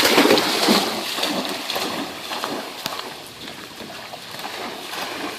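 A dog splashing through shallow floodwater, loudest in the first second and then softer sloshing and small splashes.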